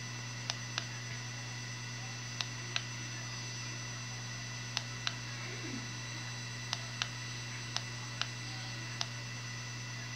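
Sharp clicks, mostly in pairs about a third of a second apart, repeating every two seconds or so, over a steady electrical hum and a thin high whine.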